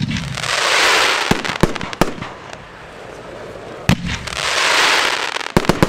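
Evolution Fireworks "The Branco" 30 mm firework cake firing its fire-pot shots: a sharp launch bang, then a hissing spray of sparks swelling for about a second and a half with a few cracks. A second bang and hiss come just under four seconds in, followed by a quick cluster of cracks near the end.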